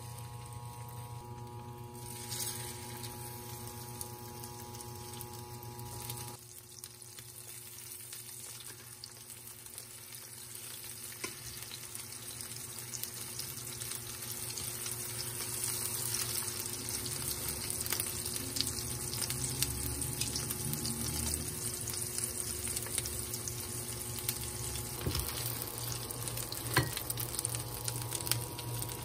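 Egg-dipped beef slices frying in hot oil in a pan, sizzling and crackling, the sizzle getting louder through the second half as more pieces fry.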